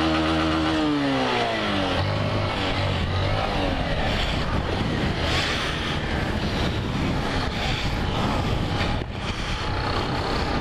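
Yamaha motorcycle engine held at steady high revs through a wheelie, then the revs fall away from about a second in. After that the bike rides on with wind rushing over the microphone, the engine faint underneath.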